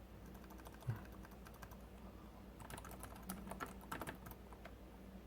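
Faint typing on an LG Rolly Keyboard, a roll-up Bluetooth keyboard: scattered soft key clicks that bunch into a quick run around the middle, with one low knock about a second in.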